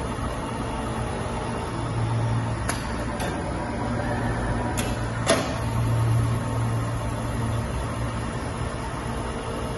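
Galopp fabric bias-cutting machine running with a steady motor hum, swelling slightly twice, with four sharp clicks in the middle, the last one the loudest.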